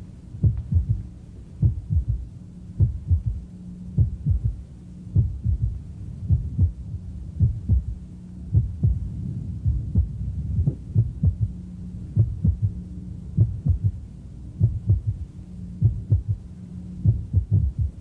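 Recorded heart sounds at the cardiac apex with the patient lying on the left side: a triple rhythm of low, dull thuds, the first and second heart sounds followed by a third heart sound (S3 gallop), which usually means a dilated, poorly contracting heart. The beats grow softer and the third sound nearly fades toward the middle, then after a premature ventricular contraction it comes back loud.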